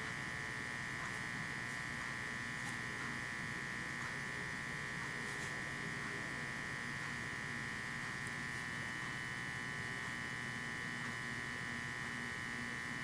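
A steady electrical buzz with a high-pitched whine, unchanging in level and pitch.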